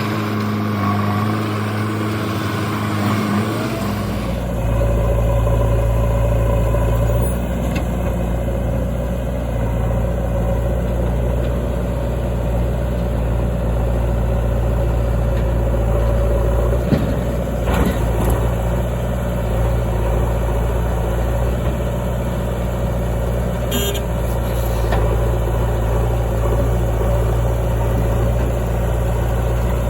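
Heavy diesel engines of a backhoe loader and a truck running steadily. About four seconds in, a deeper low rumble comes in. A few brief knocks sound around halfway through.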